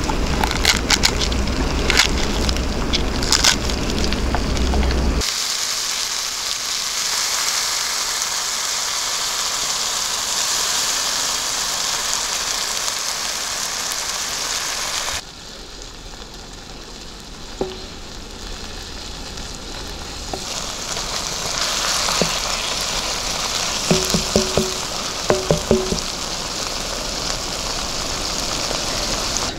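Chicken pieces with onions and pomegranate seeds sizzling in oil in a shallow iron pan: a steady frying hiss that drops back about halfway through and then builds up again, with a few light taps late on. It opens with a low rumble and a few sharp cracks as a scored pomegranate is pulled apart by hand.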